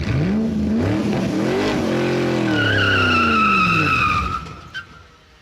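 A car engine rising in pitch, holding, then falling away and fading out, with a high tyre-like squeal over the middle part.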